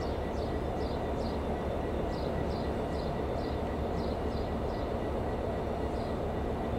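Irish Rail 29000 class diesel multiple unit running slowly on approach, a steady low rumble of engine and wheels on the track. Over it comes a series of short, high chirps, each falling in pitch, about two or three a second, stopping about two-thirds of the way through.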